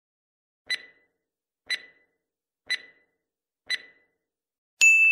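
Clock-tick sound effect, four ticks one second apart, followed near the end by a bright bell ding: a timer cue marking the pause for listeners to answer, with the ding signalling that the time is up.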